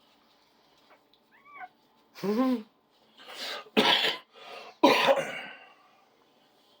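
A dog in whelping makes a thin squeak, then a short falling whine, followed by two loud, harsh cough-like hacks about a second apart.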